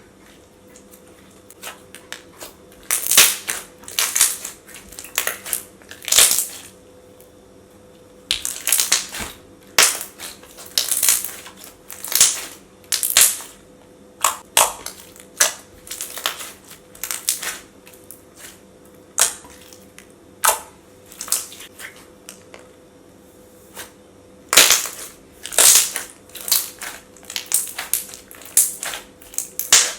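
Thick slime being squished and pressed by hand, giving irregular clusters of sharp bubble pops and crackles.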